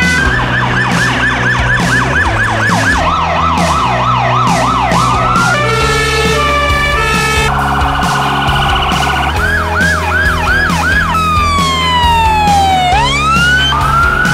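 A string of different ambulance and police sirens cut one after another. It runs fast repeated sweeps for the first few seconds, a two-note hi-lo about six seconds in, then a warble, slower rising-falling wails, and a long falling then rising glide near the end. Background music with a steady beat plays underneath.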